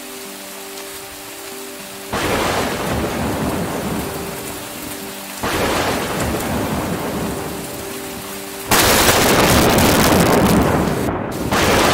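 Steady heavy rain with thunder. Four sudden loud thunderclaps come about two, five, nine and eleven and a half seconds in, each fading away slowly. The third is the loudest.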